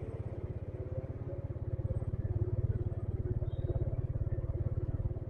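Motorcycle engine running while riding, a fast low pulsing, a little louder from about two seconds in.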